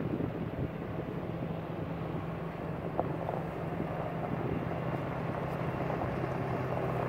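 Engines of heavy lifting equipment (large cranes and a telehandler) running steadily during a lift, a constant low drone with a small click about three seconds in.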